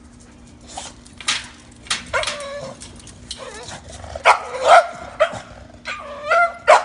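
English bulldog puppy making a run of short, excited, turkey-like vocal noises. The loudest calls come about four seconds in and near the end.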